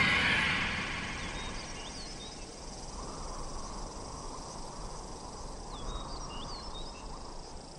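Outdoor nature ambience: a steady hiss with faint, short high chirps scattered through it.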